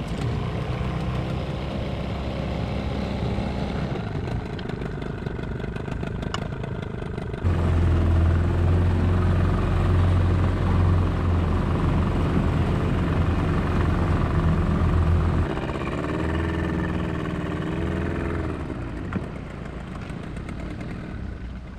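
Outboard motor pushing a small aluminium dinghy along underway, with water noise. It gets louder and deeper about seven seconds in, eases back about eight seconds later, and its pitch rises and falls briefly after that.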